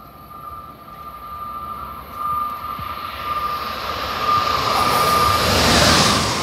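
Amtrak Acela Express high-speed trainset approaching and passing through the station: a rush of wheel and air noise that grows steadily louder and peaks near the end as the power car goes by, over a steady high whine.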